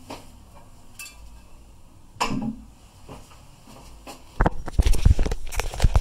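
Porcelain toilet tank lid being handled: light clinks and one sharp ceramic knock about two seconds in, then heavy low thumps and rubbing on the microphone from a little past halfway.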